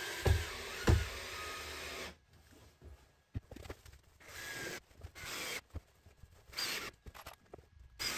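Cordless drill-driver running in the ceiling panel overhead, with two sharp knocks in the first second. From about two seconds in it runs in short stop-start bursts.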